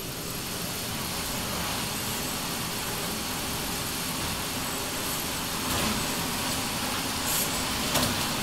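Electric target-retrieval carrier running along its overhead track, bringing the paper target back up the shooting lane: a steady mechanical whir, with a few light clicks and knocks in the last few seconds.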